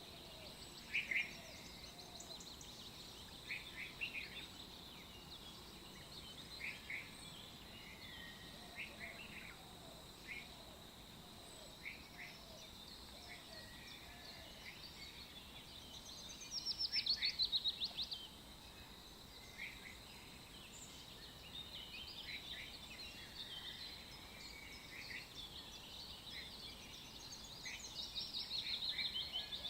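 Small birds chirping, with short calls every second or two and two louder rapid trills, one a little past the middle and one near the end. A faint, steady, high-pitched whine runs underneath.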